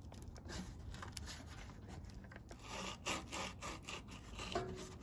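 Irregular rubbing and scraping strokes of hand work on a seized 440 big-block engine, a part being worked off it, sparse at first and coming faster from about halfway in.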